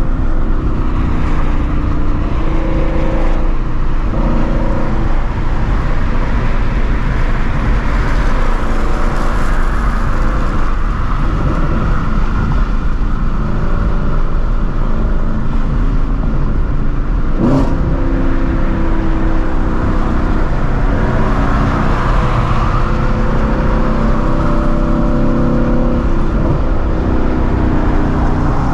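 Straight-piped 2016 Shelby GT350's 5.2-litre flat-plane-crank V8, running steadily under light throttle with its engine note rising and falling gently. There is a single sharp crack about two-thirds of the way through.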